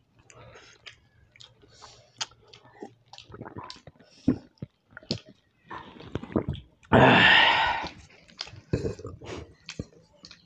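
Close-miked chewing and wet mouth clicks of people eating pasta and roti by hand. About seven seconds in comes one loud, hissing rush of noise lasting about a second.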